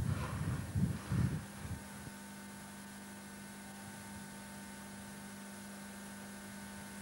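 A few low thuds in the first two seconds, then a steady electrical hum on the recording with no other sound.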